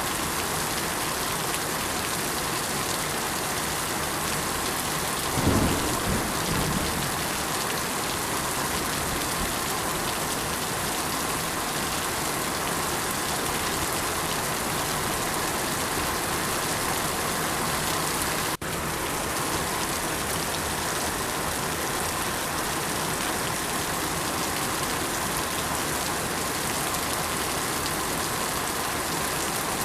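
Steady, even rain with a low rumble of thunder about five seconds in that swells and fades over a second or two. The rain sound breaks off for an instant about two-thirds of the way through.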